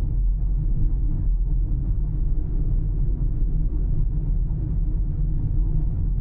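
Car driving along a road: a steady, low rumble of tyres on the road surface and engine noise.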